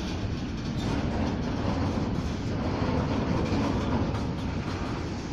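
Freight train's covered grain hopper wagons rolling past, their wheels running on the rails with a steady noise heaviest in the low range.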